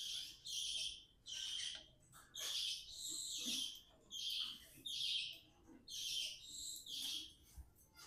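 Budgerigars chattering in a run of short, scratchy chirps, about two a second.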